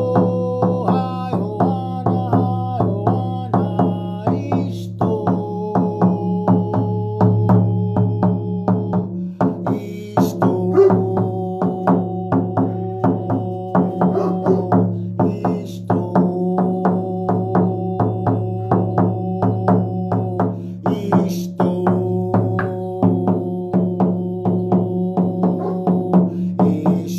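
Shamanic hand drum beaten in a steady, even rhythm over a constant low drone, with long held tones above it that step to a new pitch every few seconds.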